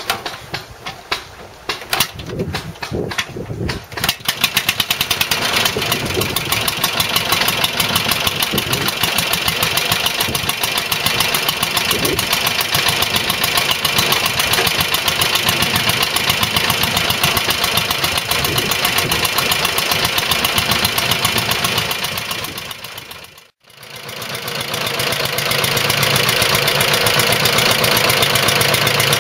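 Dennis motor mower's single-cylinder side-valve air-cooled petrol engine being started: a few seconds of uneven cranking, then it catches about four seconds in. It runs on with a fast, even firing beat. Near the end the sound breaks off for a moment and comes back with the engine still running.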